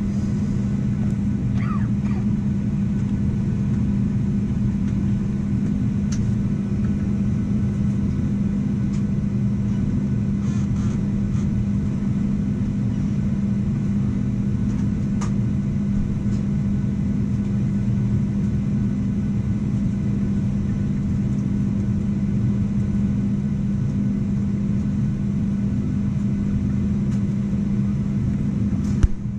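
Steady low drone inside the cabin of a Boeing 737-800 holding still on the ground, with a few faint ticks and one sharp click near the end.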